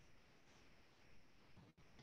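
Near silence: faint steady room hiss that cuts out for an instant near the end.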